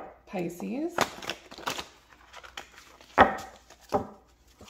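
Tarot deck shuffled by hand: cards slapping and rustling against each other in several sharp strokes spaced about a second apart.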